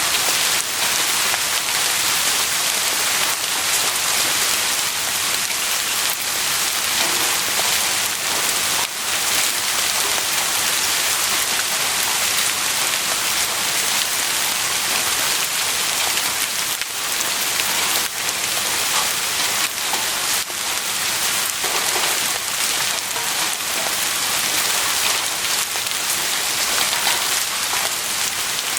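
Heavy rain falling steadily, a dense even hiss with the patter of individual drops hitting a surface.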